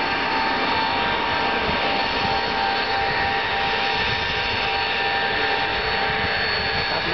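Tupolev Tu-154M's three rear-mounted Soloviev D-30KU-154 turbofans running at taxi power: a steady jet whine with several held tones over an even rumble.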